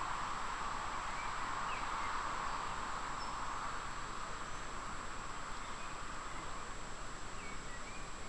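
Riverside ambience: a steady hiss with a few faint, brief bird chirps scattered through it.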